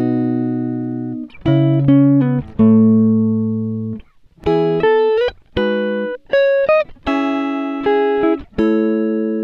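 Background music: a guitar playing slow picked notes and chords that ring out and fade, with a few sliding notes.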